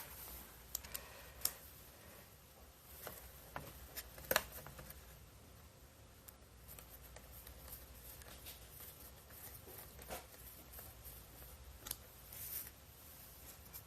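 Scattered small clicks and taps of a screwdriver and screws as a laptop hard drive is mounted in its bracket, the loudest click about four seconds in, over a faint steady hum.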